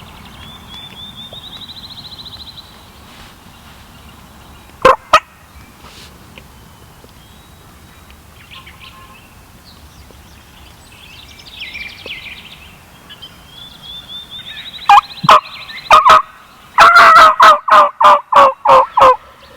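Wild turkeys calling: a few single loud calls, then near the end a quick run of about eight loud calls, with fainter trilling calls earlier.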